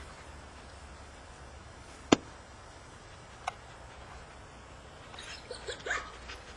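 A single sharp click about two seconds in, the loudest sound, and a fainter click a second and a half later, over a steady low outdoor hum; near the end, a short flurry of light rattling clicks as a dog's leash is picked up and handled.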